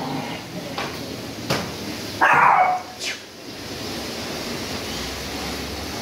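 A single dog bark a little over two seconds in, with a few short sharp clicks around it.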